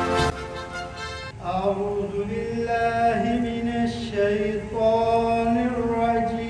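Music cuts off just after the start. After a short lull, a man's voice chants in long, held notes into a microphone.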